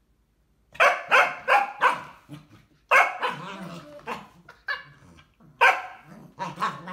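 Cavachon barking repeatedly in play: a quick run of sharp barks about a second in, more around three seconds, and another burst near the end.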